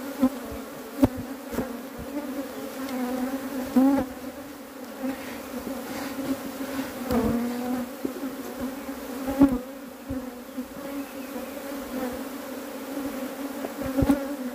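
A dense swarm of defensive honeybees (Apis mellifera) buzzing around an open hive in a steady, loud hum. The pitch bends up and down now and then as single bees pass close. A few sharp knocks sound through it, the loudest about a second in and past the middle.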